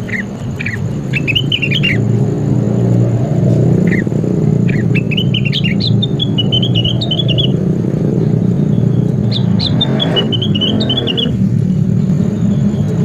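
A songbird chirping and warbling in short, high phrases, with longer runs of song about halfway through and again near the end, over a steady low rumble.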